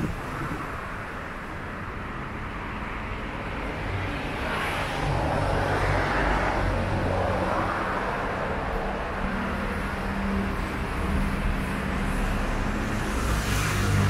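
Light road traffic on a multi-lane city avenue: a steady hum of engines and tyres, with a vehicle passing that swells and fades about five to eight seconds in, and another rising near the end.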